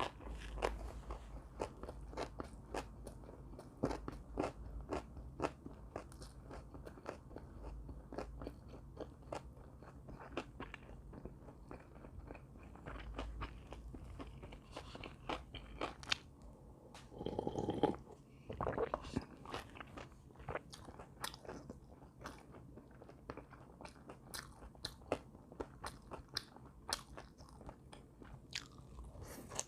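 A person chewing and crunching crisp fried food, close to the microphone: many quick crunchy bites and chews, with one louder, longer stretch a little past halfway.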